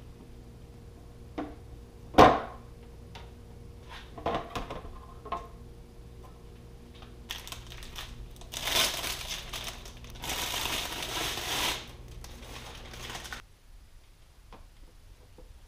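A clear plastic packaging bag crinkling loudly for about six seconds as it is handled. Before that come a few light clicks and one sharp knock from hands working on the motorcycle windscreen and its screws.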